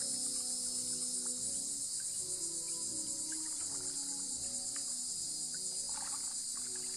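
Insect chorus from the creek-side vegetation: a dense, steady high-pitched buzzing drone that does not let up.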